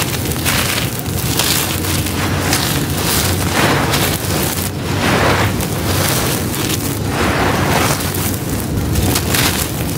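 Handfuls of gritty crumbled charcoal pouring and trickling from hands onto a loose pile: a continuous gritty, crackling hiss that swells about once a second as each handful falls.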